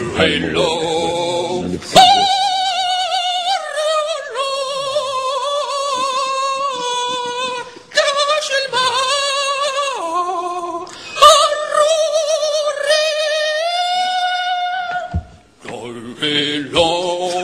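A man singing unaccompanied: long, high held notes with heavy vibrato, moving between a few pitches, breaking off about fifteen seconds in.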